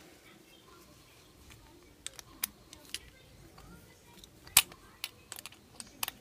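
A small wrench and metal parts being handled: a scattered series of sharp clicks and clinks, the loudest one about four and a half seconds in.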